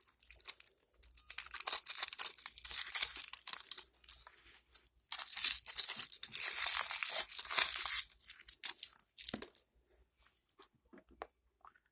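Foil wrapper being torn and crinkled off a chocolate Wonder Ball in two long stretches, followed by a single knock about nine seconds in and a few light clicks.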